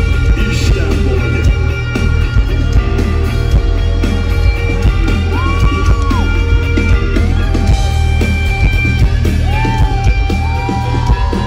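Rock band playing live and loud, with heavy bass and drums and sustained guitar or keyboard tones, and a voice yelling over the music.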